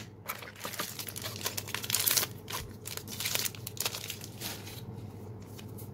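Trading cards being handled and flipped through, sliding against one another with a papery rustle; louder swishes come about two and three seconds in.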